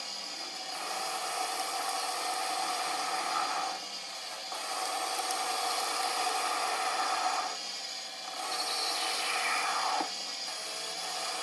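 Metal lathe facing off the end of a steel bar: the cutting tool scraping across the spinning face with a steady hiss and a steady whine under it. The cut eases off briefly about four and eight seconds in, then picks up again.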